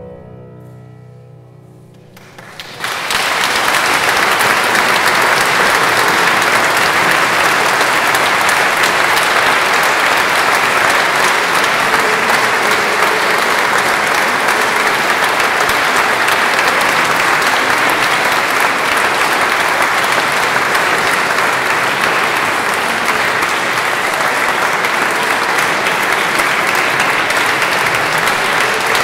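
The last held chord of a men's choir fades away, then audience applause breaks out suddenly about three seconds in and goes on steadily.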